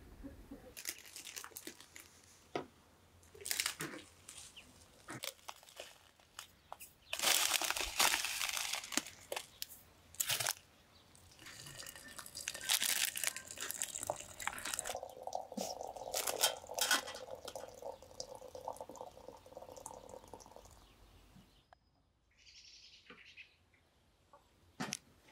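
Crinkling and rustling handling noises, then hot water running from a samovar's tap into a porcelain teapot for several seconds. Near the end there is a sharp clink as the teapot is set on top of the samovar.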